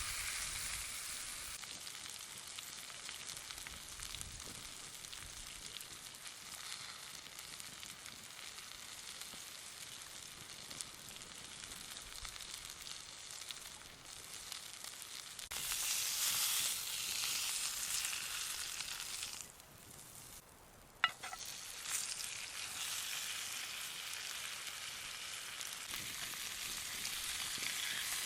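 T-bone steak frying in butter, sizzling steadily. The sizzle grows louder a little past halfway, dips briefly, and one sharp click comes before it picks up again.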